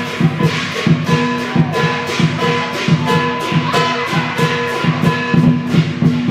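Lion dance percussion: a large drum beaten in a fast, driving rhythm with metal cymbals clashing about four to five times a second, over a steady ringing tone.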